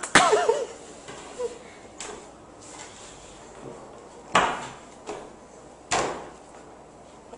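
A baby's short, high, wavering squeal of laughter just at the start, followed later by two sharp knocks about a second and a half apart.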